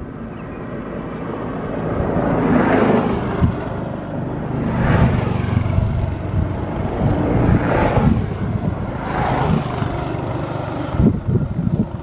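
Wind buffeting the microphone with a low rumble, while about four vehicles pass by on a nearby road, each a rising and falling whoosh of tyre and engine noise.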